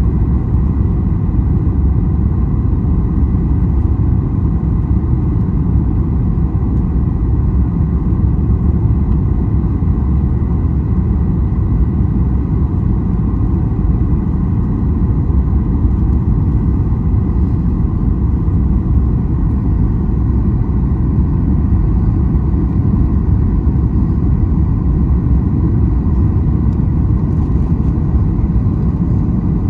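Steady, loud cabin roar of a Boeing 737 MAX 8 airliner heard from a rear window seat: low engine and airflow rumble with a faint steady whine above it.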